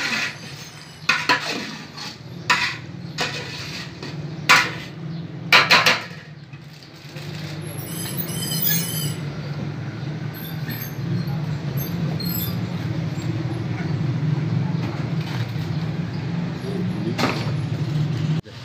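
A long metal ladle scraping and knocking against a large aluminium cooking pot as chicken is stirred, with a series of sharp strikes in the first six seconds. After that a steady low rumble carries on.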